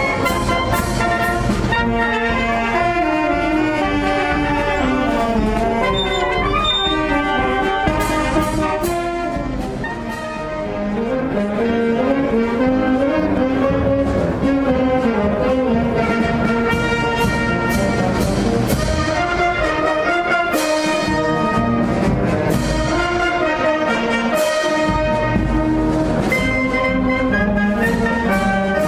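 Town marching band playing a march, brass and saxophones carrying the tune over steady drum beats; it softens briefly about ten seconds in.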